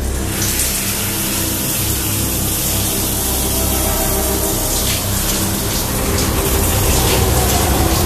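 Shower spray coming on with a sudden rush as the mixer valve is turned, then pouring steadily.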